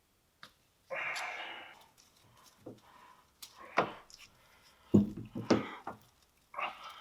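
Metal parts and tools knocking and scraping as a machine is taken apart by hand. There is a scraping slide about a second in, scattered knocks, and a heavy thud about five seconds in.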